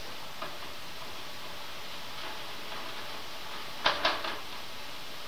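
Shredded cabbage and vegetables sizzling in a nonstick frying pan while a spatula stirs them. A few sharp scrapes and taps of the spatula against the pan come about four seconds in.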